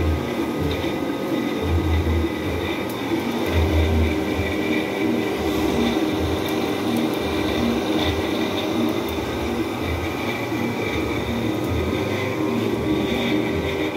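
Steady mechanical hum of a blacksmith's power hammer's electric motor running idle, its pulley spinning with no strokes, with irregular low rumbling bumps underneath.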